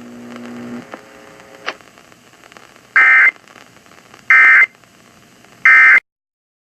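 Emergency Alert System end-of-message signal received over the radio: three short, loud bursts of buzzy two-tone digital data about 1.3 s apart, over faint radio hiss with a low hum in the first second. The audio cuts off right after the third burst.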